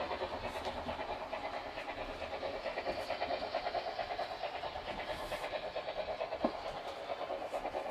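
Märklin Big Boy model steam locomotive's sound chuffing rapidly and evenly, about six beats a second, as the model train runs. One sharp click about six and a half seconds in.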